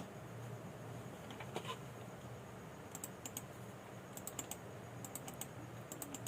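Keyboard keys being typed on in short, quick bursts of light clicks, mostly in the second half, after one sharp click at the very start.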